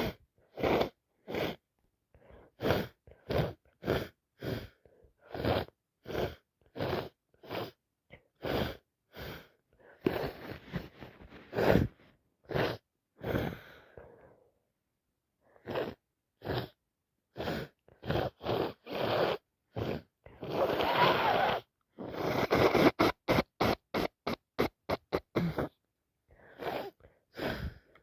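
A person with a heavy cold making a long run of short, sharp sniffs and gasps, about two a second. Two longer, noisier stretches break the run, one a little before halfway that ends in a loud sharp burst and one past two thirds in, followed by a quicker flurry of sniffs.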